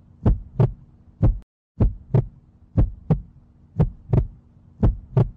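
Heartbeat sound effect: deep lub-dub thumps in pairs, about one pair a second, over a faint steady hum, dropping out to dead silence for a moment about a second and a half in.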